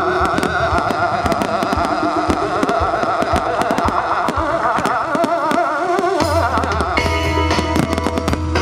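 Music with a wavering melody and rapid percussion strokes; about six seconds in a deep steady bass comes in and the music changes.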